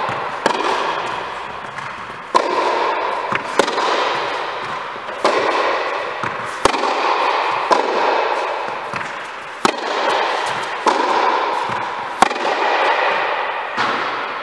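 Tennis ball struck back and forth in a baseline rally: about ten sharp pops off the racket strings, one every one to two seconds, over a loud steady rushing noise.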